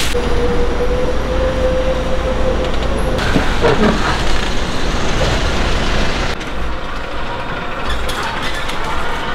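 Steady hiss of steam rising from a large steamer pot of sundae (Korean blood sausage), over a constant low rumble of street noise. A faint held tone sounds through the first three seconds.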